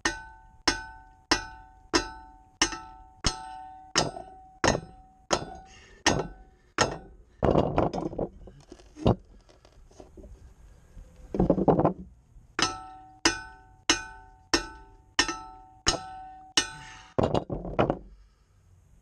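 Hammer blows on a boat propeller stuck on its shaft, each strike ringing with a clear metallic tone, about three blows every two seconds. There are two runs of blows with a few seconds of scuffling between, and the prop does not come free.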